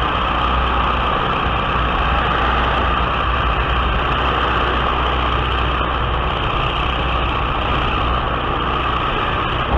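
Biplane engine and propeller running steadily in flight, mixed with loud, constant wind rush from the slipstream over the on-board camera's microphone.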